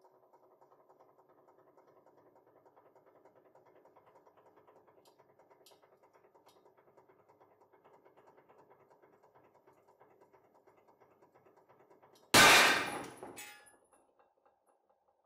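Hydraulic press running with a faint hum and fast flutter as it loads a titanium bolt in tension, then about twelve seconds in the bolt snaps with one loud, sharp bang that rings and dies away over a second or so. The bolt breaks at about 6,600 kg of load.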